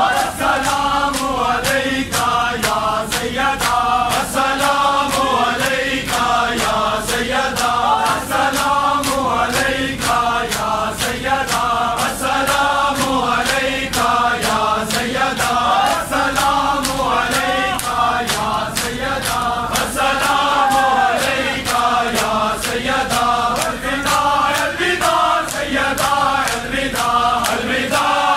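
A large group of men chanting a noha in unison, with the steady slaps of matam, hands beating on chests, about twice a second.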